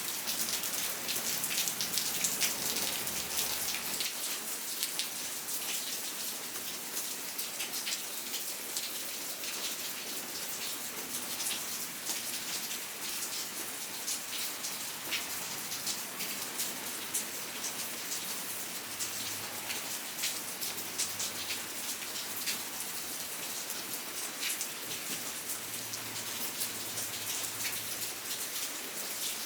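Steady rain, with many individual drops ticking sharply on a surface against a constant hiss.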